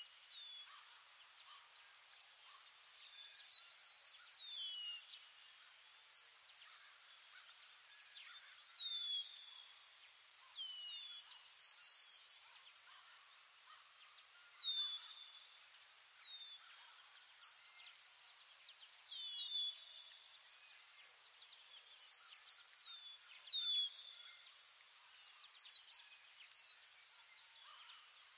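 Ambient forest soundscape: a steady, fast-pulsing high insect trill, with short falling bird chirps repeated every second or so, often in pairs.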